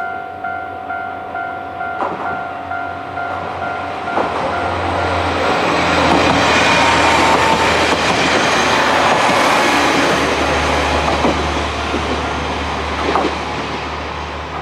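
Japanese level-crossing alarm ringing, about two dings a second, for the first four seconds, then an electric train running through the crossing, its noise swelling to a peak in the middle and easing off, with a few sharp wheel clacks near the end.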